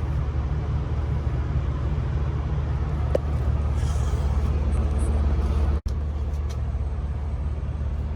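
Diesel truck engine idling steadily, a continuous low rumble, with a brief break in the sound about six seconds in.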